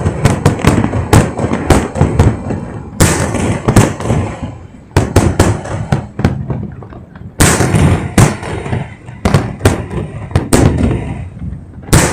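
Aerial fireworks bursting at close range: a rapid, irregular string of sharp bangs and cracks over a low rumble. Heavier volleys come about three seconds in and again after seven seconds.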